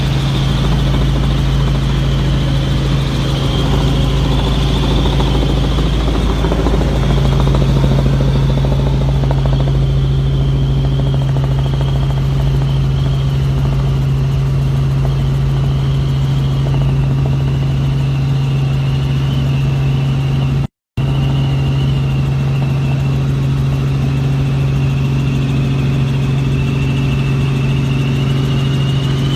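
Helicopter cabin noise in flight: the engine and rotor drone steadily with a strong low hum and a constant high whine. The sound drops out for a split second about two-thirds of the way through.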